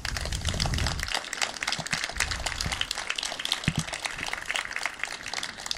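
Crowd applauding: many hands clapping in a dense patter that dies down near the end.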